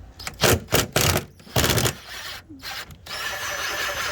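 Ryobi cordless drill backing out Phillips screws, run in several short bursts of a second or less and then in a longer steady run with a high motor whine from about three seconds in.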